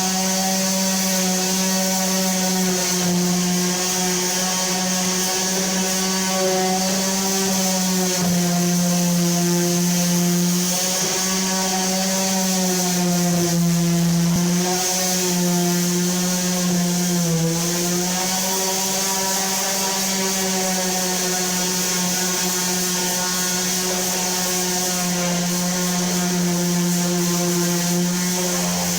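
Electric sander running steadily: a constant motor hum with a hiss over it, the pitch dipping slightly now and then as it is pressed against the wall.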